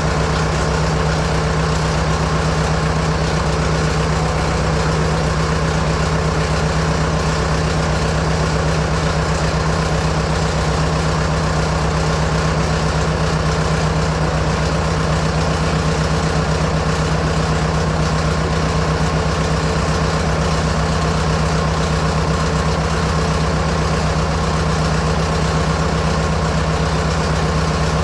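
Fordson Major tractor engine idling steadily, with an even low hum and no change in speed.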